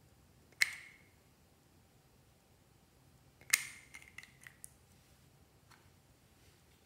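Two sharp clinks of a glass nail-polish bottle and its plastic brush cap being handled, each with a short ringing tail, about half a second in and again about three and a half seconds in. The second clink is followed by a few lighter ticks.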